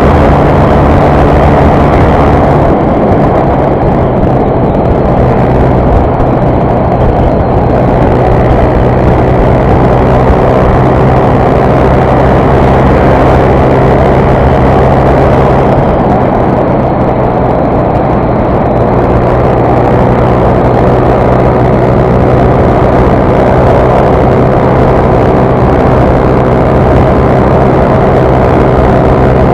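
Honda CG 150 Fan motorcycle's single-cylinder four-stroke engine running hard at high revs under way, with rushing wind noise; the engine's pitch steps down about two and a half seconds in and then holds steady.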